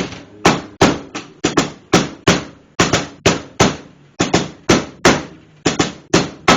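Meat tenderizer mallet pounding a boneless pork loin on a countertop: a quick, uneven run of hard whacks, about three a second, flattening and tenderizing the meat.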